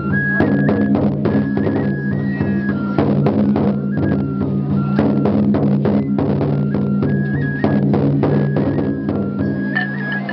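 Japanese festival music: a large taiko drum struck again and again, with a high flute melody stepping up and down in pitch over the beats.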